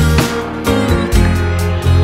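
Instrumental background music: plucked guitar notes over a bass line.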